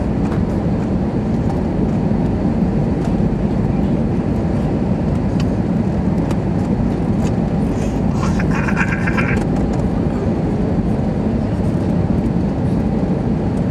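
Cabin noise inside an Airbus A320-212 airliner on descent: a steady low roar of its CFM56 engines and the airflow, heard from a window seat over the wing.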